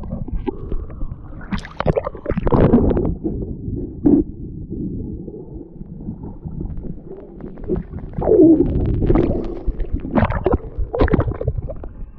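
Muffled sloshing and gurgling of sea water right at the microphone as a swimmer moves through the water, with bursts of splashing a couple of seconds in and again in the last few seconds.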